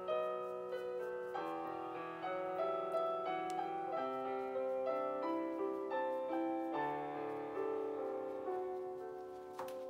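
Background piano music, notes struck and left to ring.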